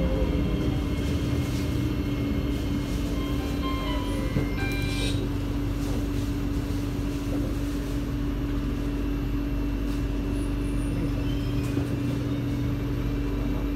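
Steady hum inside a C751B MRT train car standing still with its doors closed, with one low tone held throughout. A few faint short tones sound about four to five seconds in.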